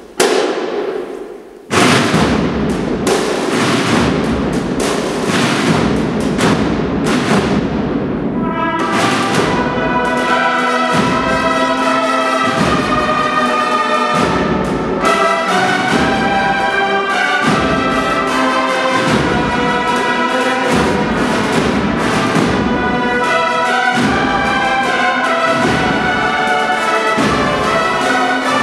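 Agrupación musical (brass and percussion band) playing a Spanish processional march: percussion beats alone at first, then trumpets, trombones and other brass come in with the melody about eight seconds in, the drums carrying on beneath.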